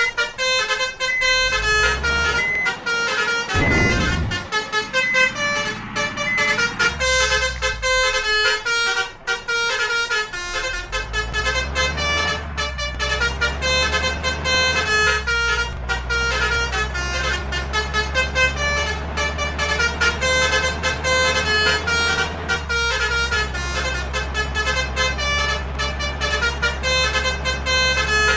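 Basuri telolet multi-tone air horn playing a quick melody of short stepped notes over and over, with a vehicle engine running underneath, its low hum steady from about a third of the way in.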